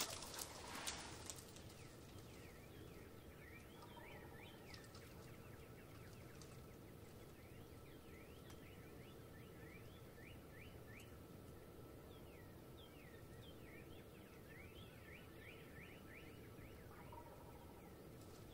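Distant wild turkey gobbling faintly, once about four seconds in and again near the end, over quiet dawn songbird chirping. A few soft knocks come at the very start.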